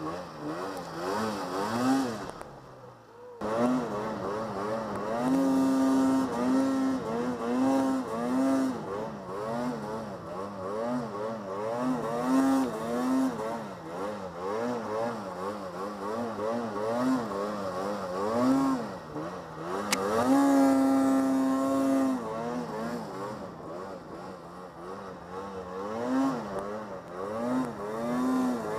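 Snowmobile engine revving up and down again and again as the throttle is worked, sometimes holding a steady high pitch for a second or two. It drops away briefly about three seconds in, then picks up again.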